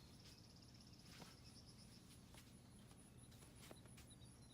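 Near silence: faint outdoor ambience with a thin, high chirping trill in the first couple of seconds and a few faint clicks.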